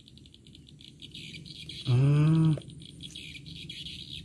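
A steady, fast-pulsing high chirping chorus in the rice paddy. About two seconds in, a single short low hum-like call, louder than the chirping, cuts in and stops.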